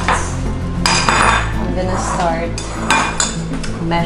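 Plates and cutlery clattering on a kitchen counter: several sharp knocks and clinks, over background music with steady low bass notes.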